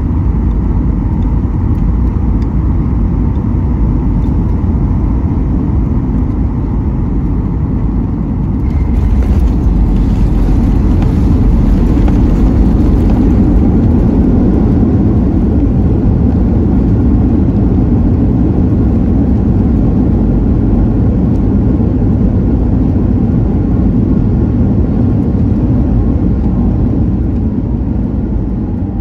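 Jet airliner landing, heard from inside the cabin: a steady roar of engine and air noise. A little under nine seconds in the roar rises sharply with added hiss as the plane touches down and the engines spool up for reverse thrust, then it gradually eases off as the plane slows on the runway.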